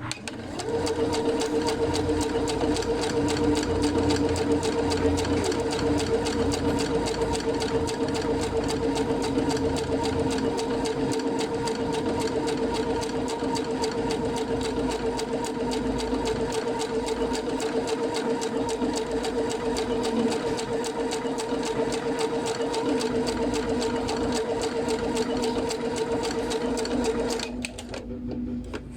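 Sewing machine running and stitching at a fast, even rate, stopping shortly before the end.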